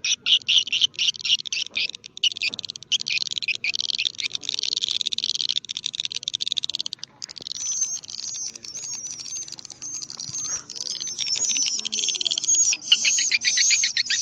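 Edible-nest swiftlet calls, a recorded lure sound of the kind played to draw swiftlets into a nesting house: dense, rapid, high twittering chirps, with a brief break about seven seconds in and more clipped, stuttering chirps near the end.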